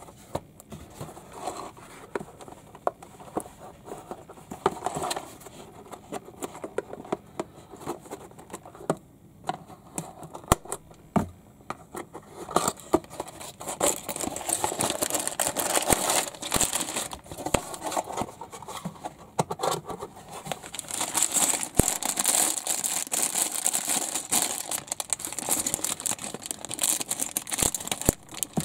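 Cardboard box of plastic building bricks being handled and opened, with light clicks and scrapes. About halfway through, the handling turns into the crinkling and rustling of clear plastic bags of bricks, which grows louder and denser near the end.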